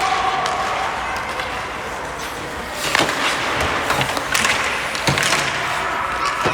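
Ice hockey play: skates scraping the ice over steady rink noise, with three sharp clacks of sticks and puck, about halfway through and twice more near the end.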